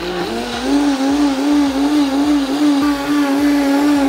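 Countertop blender running at full speed, liquefying celery stalks and mint leaves in water. The motor's pitch climbs over the first half second, then holds steady with a slight waver.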